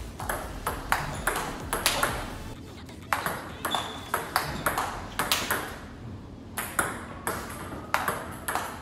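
Table tennis ball clicking off the table and a penhold racket in a rally of backhand push strokes. The sharp taps come two or three a second, with a couple of brief pauses.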